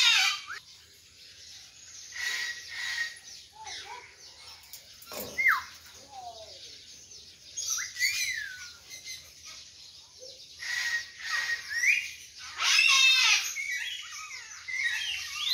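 Bird calls: harsh squawks at the start and loudest around thirteen seconds in, with short whistled chirps and falling whistles scattered in between.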